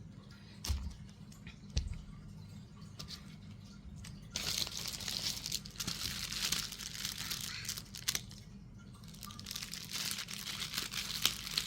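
Two light knocks, then plastic packaging crinkling and rustling in long stretches as it is handled and opened.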